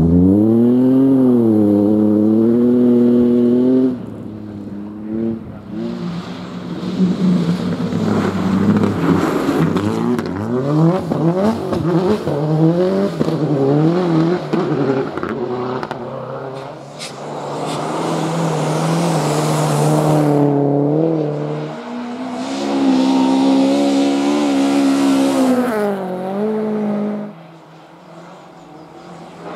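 Rally cars at full throttle on a snowy stage, engines revving hard with pitch climbing and dropping through gear changes as they accelerate away and pass, with a rush of hiss on the close passes. The sound drops quieter near the end.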